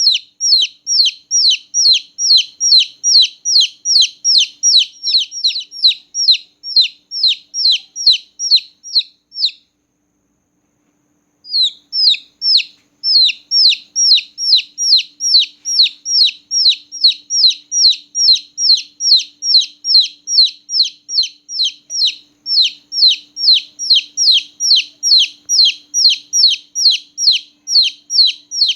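Newly hatched chicken chick peeping loudly: a steady series of short, high, downward-sliding peeps, about three a second, broken by a pause of about two seconds around a third of the way in.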